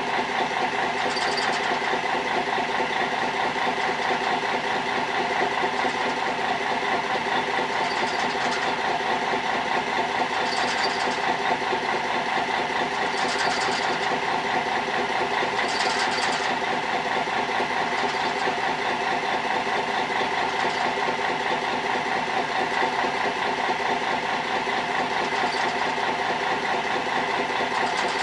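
Fishing boat's engine idling steadily, with a few short hisses every few seconds.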